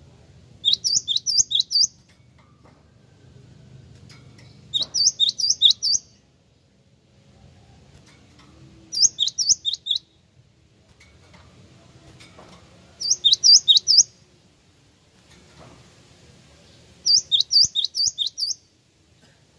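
Cinereous tit singing: five loud bursts of about six quick, repeated high whistled notes each, coming roughly every four seconds.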